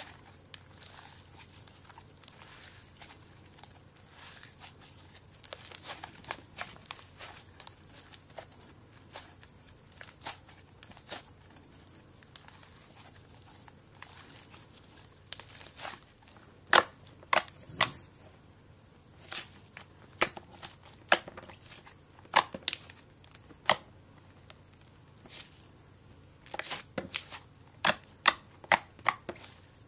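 Blue slime being squeezed, folded and pressed by hand, giving irregular wet crackles and sharp pops as air pockets burst. The pops grow louder and more frequent about halfway through, as the slime is pressed against the tabletop.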